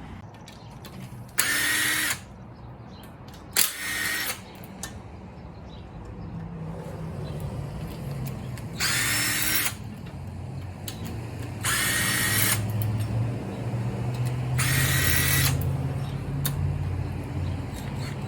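Power tool run in five short bursts of under a second each, each with a steady whine, spinning bolts out of the engine. A low hum rises underneath in the second half.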